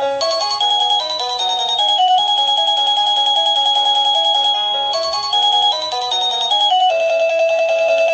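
Sadotech Model C wireless doorbell chime playing one of its electronic melody tunes: a string of short and held pure-sounding notes. The same phrase comes round again about every five seconds.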